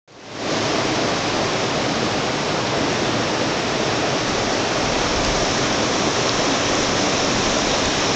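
Rocky mountain river running over shallow riffles and boulders, a steady full rush of water that fades in over the first half second.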